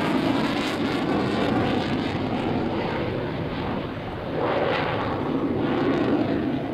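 F-16 Fighting Falcon's jet engine heard as the fighter flies away: a loud, steady rushing noise. Its high hiss falls away after about two seconds, and it dips briefly near four seconds before swelling again.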